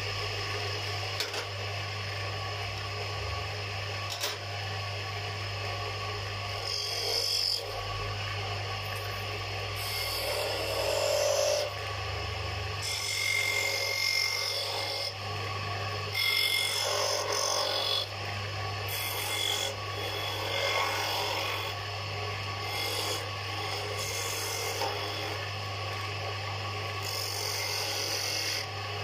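Wood lathe running with a steady motor hum while a turning chisel cuts the spinning wooden spindle, scraping in several short passes.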